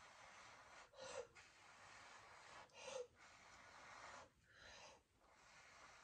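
A person blowing through the mouth onto wet acrylic pour paint to push it across the canvas. The air hisses faintly in long blows, broken by quick sharp breaths in, about a second in and again about three seconds in.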